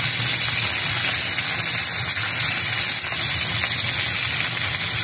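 Lamb chops sizzling steadily in hot fat in a cast-iron skillet, an even hiss of pan-frying as they are turned with tongs.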